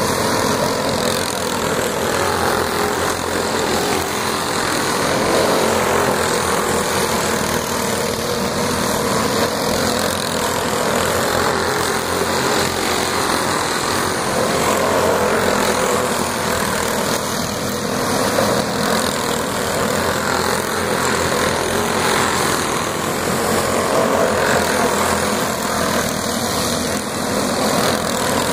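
Several dirt-oval racing go-karts lapping the track together: a continuous drone of small kart engines whose pitch rises and falls every few seconds as the karts pass by and speed up out of the turns.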